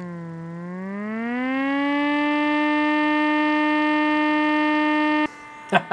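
Small 3D-printed air raid siren driven by a Noctua NF-A12x25 120 mm PC fan, wailing like a really tiny siren. Its pitch sags and climbs back up, holds steady for a few seconds, then cuts off suddenly near the end.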